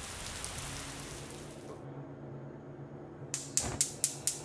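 Rain falling for the first couple of seconds, then dying away. Near the end a gas stove's igniter clicks five or six times in quick succession, about four clicks a second, as the burner lights.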